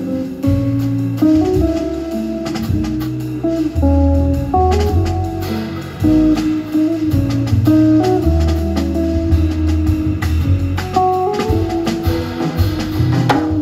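Live jazz trio playing: guitar taking a melodic line over upright double bass notes and drums with light cymbal work.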